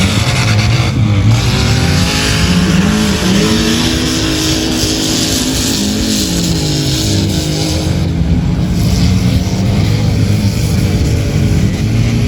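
Four-wheel-drive engine revving hard while driving through desert sand, its pitch rising and falling again and again under a steady hiss.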